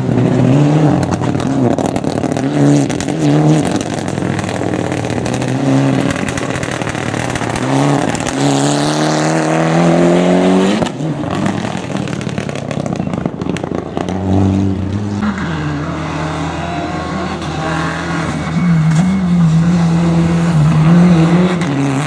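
Mitsubishi Lancer Evolution X rally car's turbocharged four-cylinder engine revving hard and changing gear, with a long rising rev about eight seconds in that cuts off sharply near eleven seconds. After that a rally car's engine runs on at steadier revs that rise and fall.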